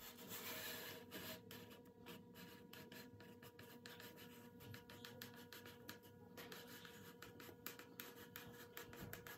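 Near silence: faint scratching with light ticks as a hot foam cutter is drawn through polystyrene insulation foam, over a faint steady hum.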